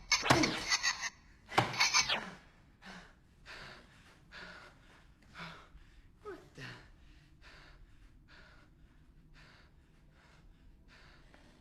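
A frightened man gasping and panting. A few loud sharp gasps open it, then quick, evenly spaced breaths that grow fainter.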